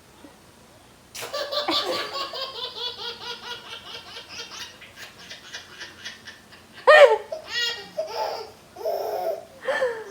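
Baby laughing hysterically: belly laughs in long runs of rapid pulses, starting suddenly about a second in. The loudest burst of laughter comes about seven seconds in.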